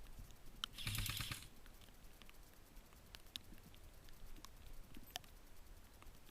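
A short rapid burst of airsoft gunfire about a second in, followed by scattered faint sharp ticks.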